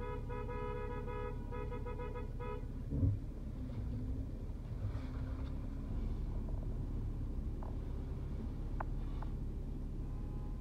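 A car horn honks three times in quick succession, the first blast the longest, followed about three seconds in by a dull thump, over the low rumble of the car and the traffic.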